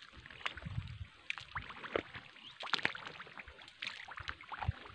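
Footsteps in wet rice-paddy mud and shallow water, an uneven run of sloshing steps with short sharp ticks and swishes.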